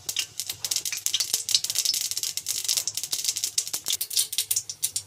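Mustard seeds crackling and popping in hot oil in a stainless steel kadai: a dense run of quick, sharp pops, busiest in the middle. The popping is the tempering stage and shows the oil is hot.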